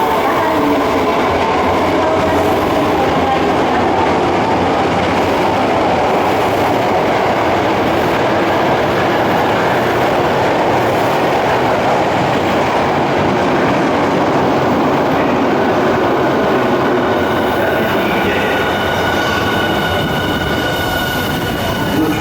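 Sakaisuji Line subway train moving along the underground station platform: a loud, steady rumble of wheels and running gear. Near the end a few steady high tones join it.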